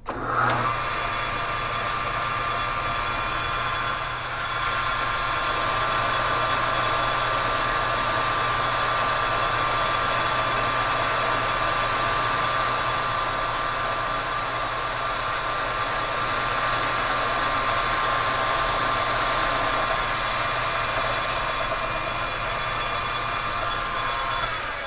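Metal lathe running under power, its four-jaw chuck spinning while the tool turns a shaft down toward a 0.75-inch diameter. The sound is a steady hum with a constant whining tone. It gets a little louder about four seconds in and cuts off right at the end.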